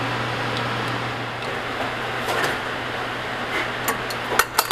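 Steady drone of a running fan with a constant low hum, and a quick run of sharp clicks near the end.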